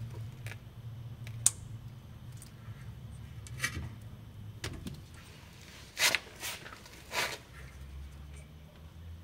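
Scattered clicks and short scraping clatters of hand work with tools and metal parts, over a steady low hum. A sharp click comes about a second and a half in, and the loudest clatters come twice in the second half.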